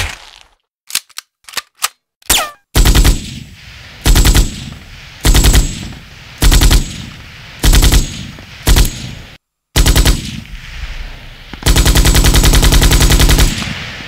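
Automatic gunfire: a single shot at the start and a few short clicks, then seven short machine-gun bursts about a second apart, and a longer burst of about two seconds near the end.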